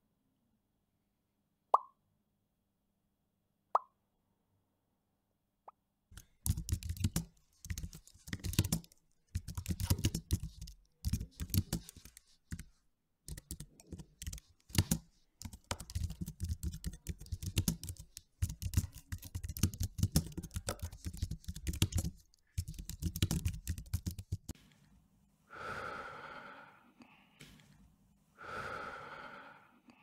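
Three short mouth pops about two seconds apart, then a long run of fast typing on a computer keyboard, a dense clatter of key clicks lasting about eighteen seconds. Near the end come two longer airy sounds, a few seconds apart.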